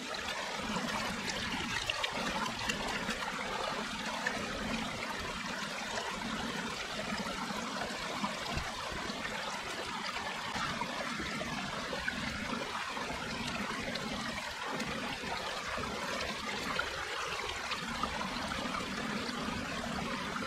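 Small shallow creek trickling steadily over rocks, with the water in a gold pan sloshing as it is dipped and worked in the stream.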